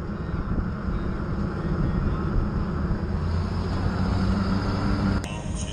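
Jeep driving at road speed, heard from inside the cabin: a steady low engine drone mixed with tyre and wind noise. The sound changes abruptly about five seconds in.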